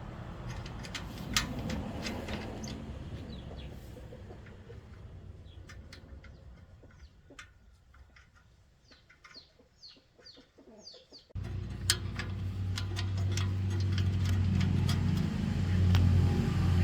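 Chickens clucking, with scattered clicks over a fading low hum. About eleven seconds in, a loud, low, steady hum starts abruptly and holds to the end.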